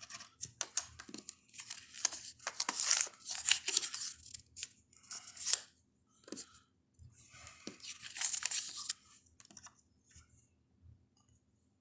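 A scratch-off lottery ticket being scratched, its coating rasped off in quick repeated strokes that stop about nine seconds in.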